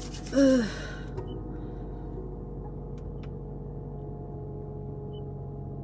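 Steady low hum of a car's idling engine, heard from inside the cabin. A short voiced hum with falling pitch comes about half a second in, and there are two faint ticks around three seconds.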